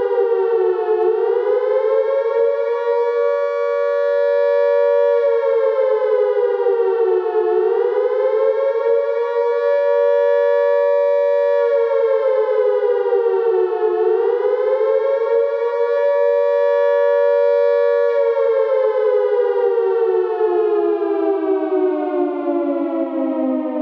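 British World War II air raid siren sounding the wailing warning, two close discordant notes together. Its pitch dips and climbs back three times, holding at the top between, then falls in one long slow slide as the siren winds down near the end.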